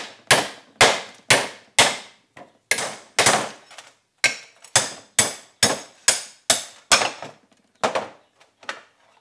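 Small hammer tapping a pressed-on seal off the end of a Ford Super Duty front axle shaft, working around it: sharp metallic taps with a short ring, about two a second, pausing briefly near the middle.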